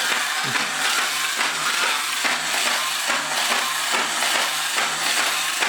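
Original 1960s Mr. Monster battery-operated toy robot walking, its small motor and gear train running with a steady rhythmic mechanical clatter. The batteries are fresh, so it marches at full speed.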